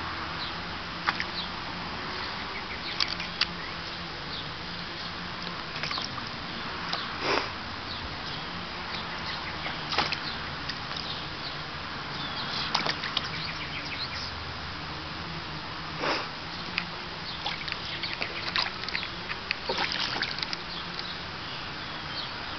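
Small splashes and sloshes of shallow water as a Savannah cat paws at and steps through a plastic kiddie pool, coming every few seconds and several close together near the end, over a steady background hiss.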